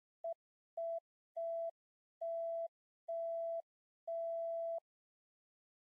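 Six electronic beeps at one steady pitch, each longer than the last, from a short blip to nearly a second, with silence between. It is an intro sound effect for an on-screen loading animation.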